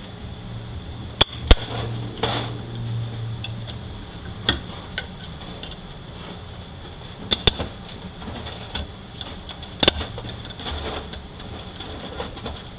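Metal transmission parts being handled on a workbench during teardown of the reverse clutch pack: scattered sharp clanks and clicks of steel on steel, the loudest about a second and a half in and near ten seconds.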